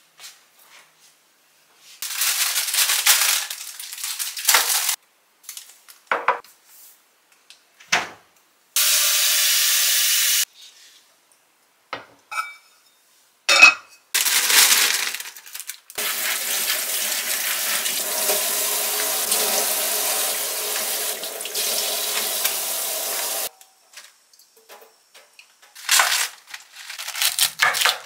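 Kitchen tap running water in several spells, the longest about eight seconds, with a few clunks and short beeps as a pot is set on the cooktop. Near the end a chef's knife chops napa cabbage on a wooden cutting board in quick strokes.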